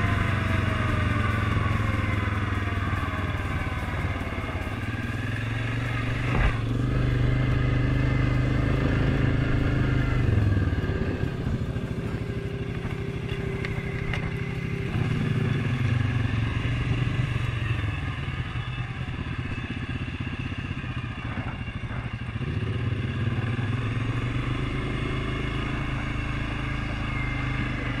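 Suzuki King Quad 750 ATV's single-cylinder engine running while riding a gravel trail. Its pitch falls over the first few seconds, drops about ten seconds in, and rises again about fifteen seconds in and once more near the end.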